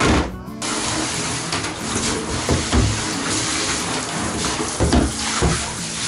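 Running shower water spraying and splashing onto a plastic refrigerator crisper drawer in a bathtub, a steady hiss, with a few dull knocks as the drawer is handled.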